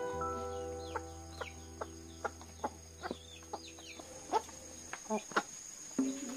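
Chickens clucking, with a few short clucks near the end, amid small high chirps and a run of light ticks about twice a second.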